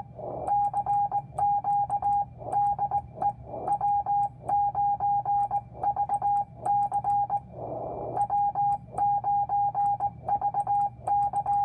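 Morse code CQ call from a home-built 6V6GT crystal-controlled 40-meter transmitter, heard as a steady mid-pitched beep keyed in dots and dashes, with a little chirp. There is a faint click at each key stroke, and noise swells up in the longer pauses between characters.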